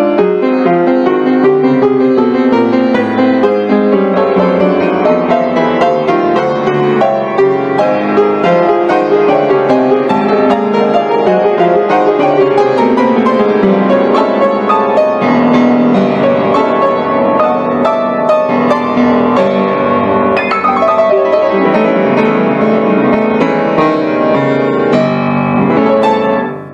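Background piano music, fading out near the end.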